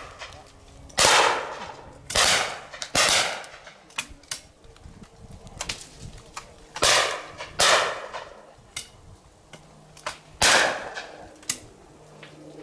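Shotguns firing at clay targets: six loud reports, three about a second apart, then a pair around seven seconds in, and a single shot near the end, each trailing off briefly. Fainter cracks sound between them.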